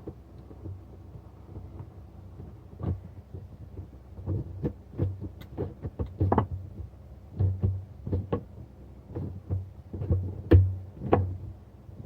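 Irregular clicks, knocks and low thumps of hands fitting the plastic air-intake and breather pipe parts onto a Dodge Ram 4.7 V8 engine, over a faint steady hum. The loudest knock comes about ten and a half seconds in.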